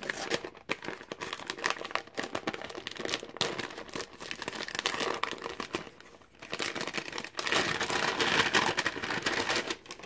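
Paper envelope being torn open and unfolded by hand, rustling and crinkling, then louder crinkling of a clear plastic sleeve in the second half.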